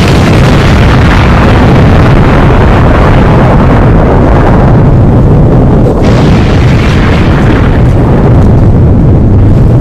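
Extremely loud, distorted explosion sound effect, pushed to the point of clipping: one continuous blast of dense noise heavy in the bass that holds at full level without a break.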